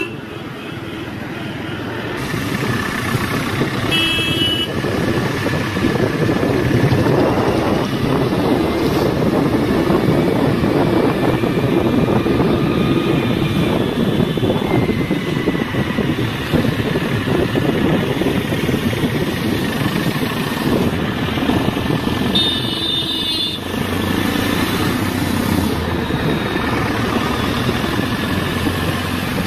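Motor scooter riding along: engine and wind noise on the phone's microphone, growing louder over the first few seconds as it picks up speed. Two short horn beeps sound, one about four seconds in and one later on.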